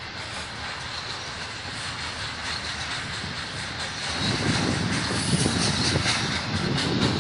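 BNSF intermodal freight train's trailer-on-flatcar cars rolling past, steel wheels running on the rails; the low rumble grows louder about four seconds in.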